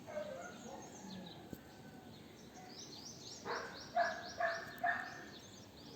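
Birds calling: thin, high chirps, then a quick run of four harsher calls about halfway through.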